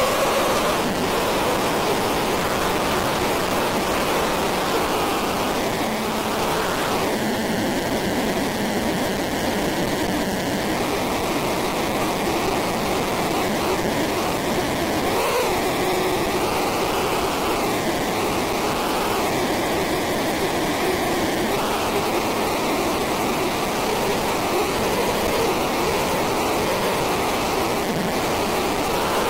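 Loud, steady electronic noise wash that sounds like rushing water, with a slow wavering, phaser-like sweep in its tone from about six seconds in.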